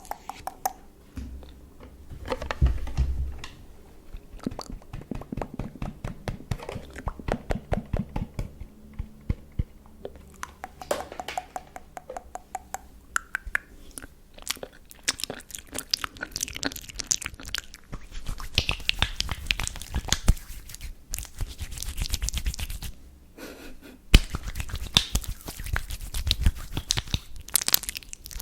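Close-up ASMR hand sounds: hands rubbing and fingers clicking, a fast, dense run of crackling clicks with longer stretches of rough rubbing after the middle.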